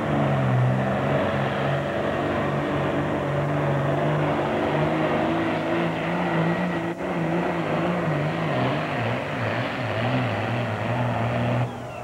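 Diesel super farm class pulling tractor running hard under load as it drags a weight sled, its engine pitch wavering up and down. The sound cuts off suddenly near the end.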